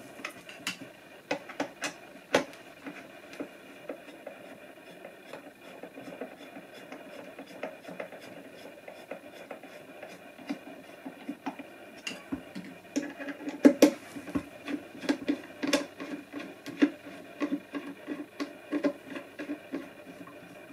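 Hand screwdriver driving Phillips screws back into the plastic volute housing of an Oase Aquarius Fountain pond pump: a run of small, irregular clicks and creaks that grows denser and louder about halfway through.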